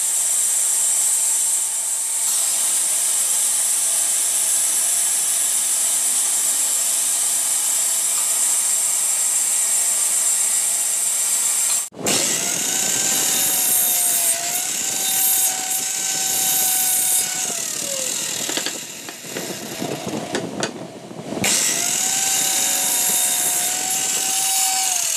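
Band saw running steadily as a strip of wood is fed along its blade, with a high hiss. Then a handheld circular saw's motor whines as it cuts wood, its pitch sagging and dropping away for a few seconds, then it speeds up again and its whine falls off as it winds down near the end.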